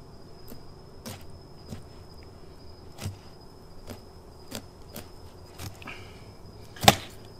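Knife clicking and ticking against a snapper's bones as it scores along the fish for filleting: scattered light clicks, with one sharp knock near the end.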